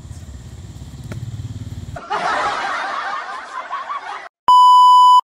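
Low outdoor background rumble, then about two seconds of a laughter sound effect that cuts off abruptly. A loud, steady electronic beep tone follows near the end.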